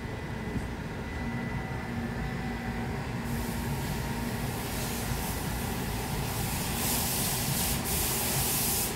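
Low, steady rumble of a car heard from inside its cabin as it moves into a car wash. About a third of the way in, a hiss of spraying water starts and grows louder toward the end.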